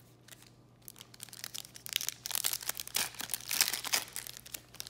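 Foil trading-card pack being crinkled and torn open by hand, a dense run of crackles starting about a second in.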